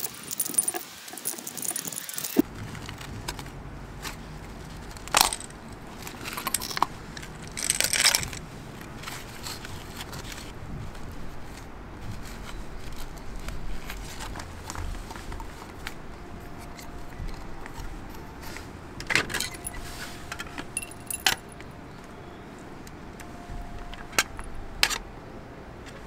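Sheet metal and hand tools: snips and pliers cutting and bending a stainless louvered vent cap, with metal pieces and tools set down on concrete. Scattered sharp metallic clicks and jingles, irregularly spaced with pauses between.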